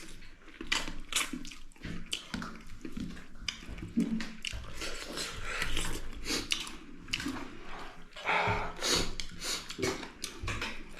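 Close eating sounds: chewing and lip-smacking on a big piece of chicken meat eaten by hand, in many irregular short smacks and crunches.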